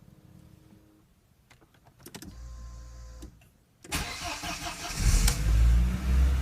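2004 Audi A4's 1.8-litre turbocharged four-cylinder being started: a few clicks, then a low hum from about two seconds in; the starter cranks at about four seconds and the engine catches about a second later and runs loudly. This is an engine that the owner reports misfiring and stalling since a radiator replacement.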